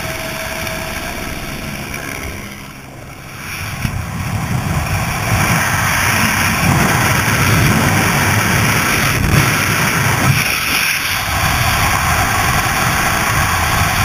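Helicopter turbine and rotor noise at the open cabin door. It fades briefly as the skydiver drops away, then gives way to loud, steady freefall wind rushing and buffeting over the helmet camera's microphone, building over a couple of seconds.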